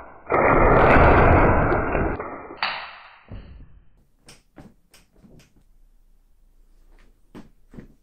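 Homemade crossbow being shot: a loud noisy sound of about two seconds as the string snaps forward, followed by a sharper hit, then a scatter of light clicks and knocks as the crossbow is handled.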